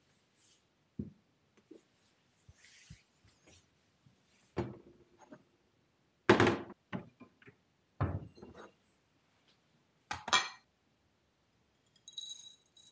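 Ceramic bowls, a plastic lid and a wooden cupboard door being handled: scattered thunks and knocks, the loudest about six seconds in. Near the end, a dry rattling hiss as rolled oats are poured into a bowl on a kitchen scale.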